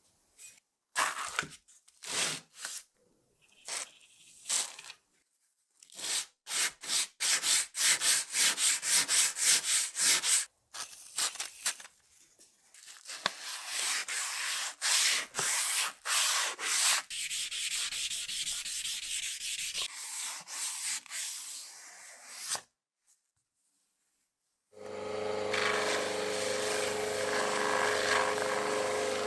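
Abrasive paper rubbed by hand over a metal axe head in quick back-and-forth strokes, about three a second at their most regular. After a short pause a buffing wheel on a polishing motor starts running steadily, with a steady hum.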